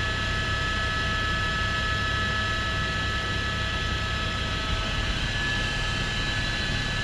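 Helicopter in flight, heard from inside the cabin: a steady low drone of engine and rotor with a constant high whine over it.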